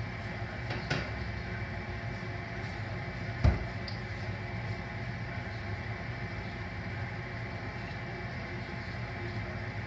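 Steady mechanical hum with a hiss underneath, and one sharp knock about three and a half seconds in.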